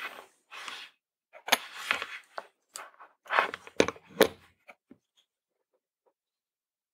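Light clicks, taps and rustling of hands picking up and moving a small circuit board on a work surface, a handful of separate taps that die away about five seconds in.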